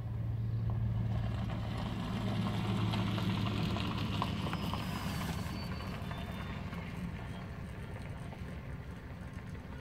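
An engine running steadily with a low hum, under an even hiss that swells over the first few seconds.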